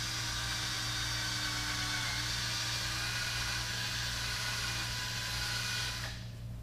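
Power drill running steadily as it bores a hole through the side of a Power-Pole shallow-water anchor: an even whine that stops near the end.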